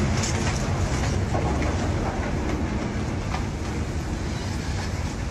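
A load of logs sliding off a tilting self-dumping log barge into the water: a steady heavy rumble with scattered clatters and splashing.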